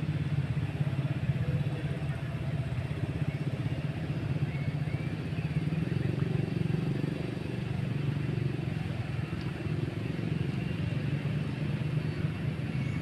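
Steady low rumble of outdoor background noise, unbroken, with a few faint short chirps about halfway through.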